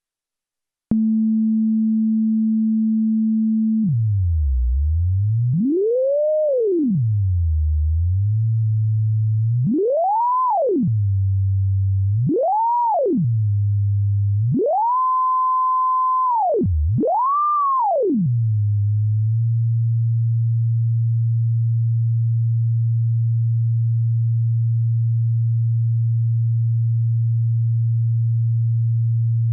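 Sine-wave oscillator in the Auraglyph iPad synthesis app sounding a pure electronic tone. It switches on about a second in as a steady low tone, then its frequency is swept up and down in five smooth glides, and it settles on a steady lower tone for the last ten seconds.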